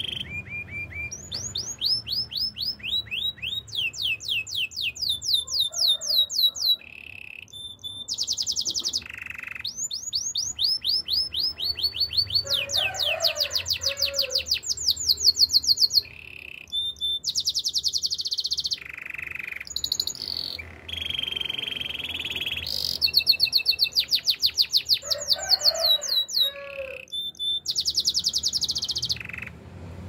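Domestic canary singing: fast rolling trills of repeated falling notes, alternating with short held whistled notes, in one phrase after another.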